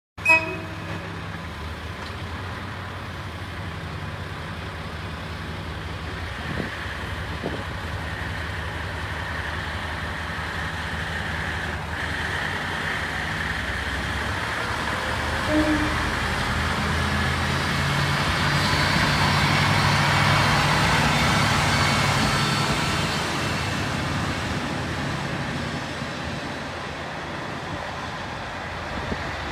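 Diesel railcars running at a station: the steady low hum of a KiHa 150 and KiHa 40 diesel engine. One railcar pulls away, and its engine and wheel noise swell to a peak about two-thirds of the way through, then ease off. A brief sharp sound comes at the very start.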